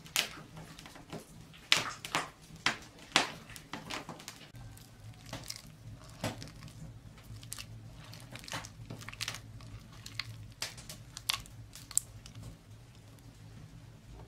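Bare hands squeezing and kneading soft butter in a ceramic bowl: irregular wet squelches and crackles, densest in the first few seconds, then sparser.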